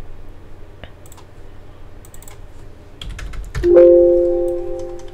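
Scattered clicks of a computer keyboard and mouse. About three and a half seconds in comes a loud ringing tone of a few pitches that slowly fades.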